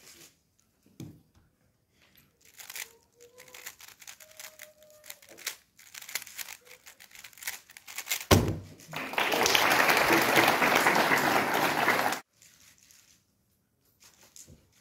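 Rapid clicking and rattling of a 3x3 speedcube being turned in a speedsolve, ended about eight seconds in by a sharp knock. About three seconds of loud, even rustling hiss follow and cut off suddenly.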